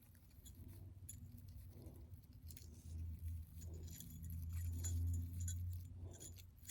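Small jingle bells on a doorknob hanger jingling faintly and irregularly as the piece is handled, with light clinks over a low hum.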